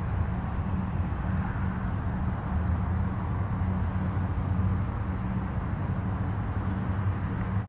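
Distant highway traffic: a steady low rumble of tyres and engines with no single vehicle standing out.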